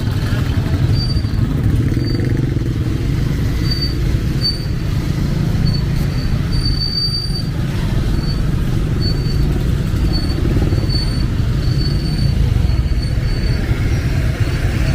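Street traffic: motorcycle and car engines running in a steady low rumble, with short high-pitched tones repeating throughout.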